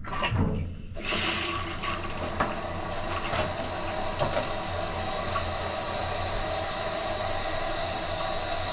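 Toilet tank fill valve running after the water supply is turned on, filling the freshly installed tank: a steady hiss with a high whine that starts suddenly about a second in and stops near the end.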